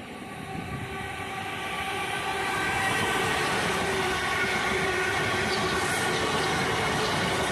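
South Western Railway electric multiple-unit train approaching and running along the platform. The rumble and rail noise grow louder over the first few seconds, then hold steady, with a steady whine above them.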